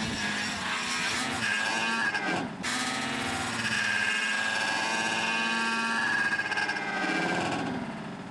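Two snowmobile engines revving hard as the sleds accelerate side by side and jump, their pitch rising and wavering, with a brief break about two and a half seconds in.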